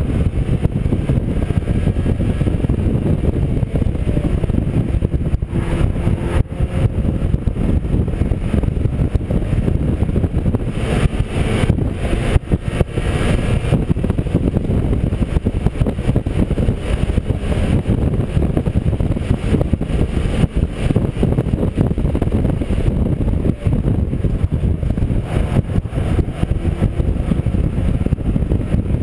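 Mazda MX-5 race car's four-cylinder engine running hard at racing speed, heard onboard with heavy wind and road noise. The sound turns briefly harsher and brighter for a few seconds a little before the middle.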